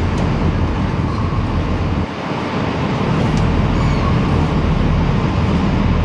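Steady low, engine-like rumble under a broad rushing hiss. The low rumble drops out for about a second, about two seconds in, then returns.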